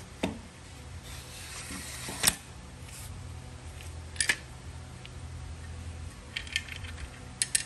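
Metal fittings of a WWII Japanese officer's guntō being handled and fitted together: a short scraping slide, then a sharp metallic click about two seconds in, the loudest, followed by a single click and later a few lighter clicks and small rattles as the guard and fittings click together.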